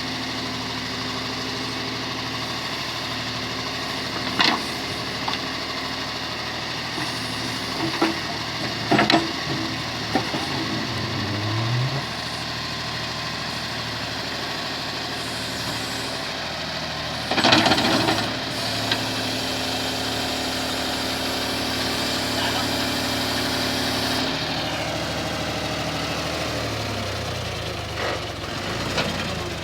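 John Deere 5310 tractor's three-cylinder diesel engine running steadily while powering a backhoe. The engine pitch rises briefly about twelve seconds in. Several sharp knocks are heard, and the loudest sound is a clattering burst of about a second near the middle.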